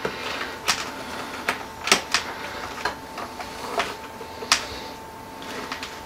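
Small screwdriver prying at a stubborn power-supply plug on a NAS motherboard: irregular sharp clicks and scrapes of metal and plastic, about eight, dying away after about four and a half seconds.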